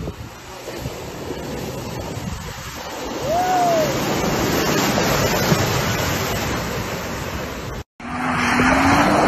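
Mercedes-Benz pickup truck ploughing through a muddy pool, with a steady rush of splashing mud and water that grows louder about three seconds in. The sound breaks off near the end.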